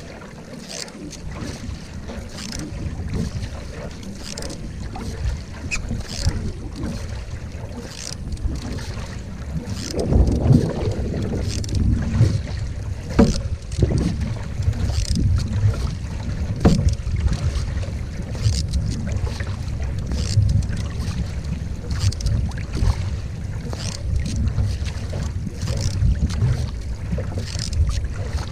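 A single-blade canoe paddle pulling through the water in regular strokes, a short splash about once a second, under a low rumble of wind on the microphone that gusts harder about ten seconds in.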